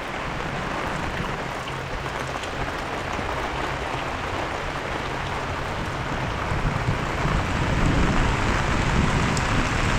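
Heavy rain pouring steadily, with a low rumble of thunder building over the last few seconds.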